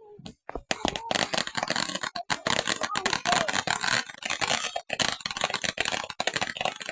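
Fireworks crackling: a dense, rapid run of sharp pops that starts about half a second in and keeps going.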